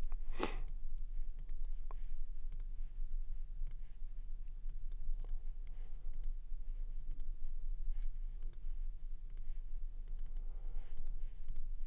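Computer mouse clicking at irregular intervals, about a dozen clicks, over a low steady hum.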